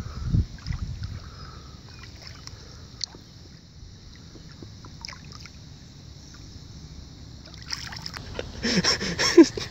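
Shallow lake water splashing and lapping as a carp is held and released by hand at the shoreline, with a few low thumps about half a second in. Near the end a voice calls out briefly.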